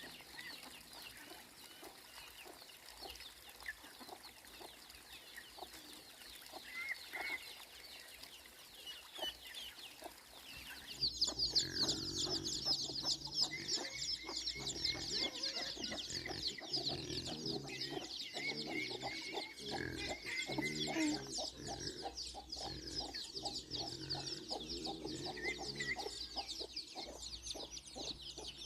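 Chickens clucking, with scattered high chirps. About a third of the way in the sound jumps louder as a dense chorus of fast, high chirping joins the clucking.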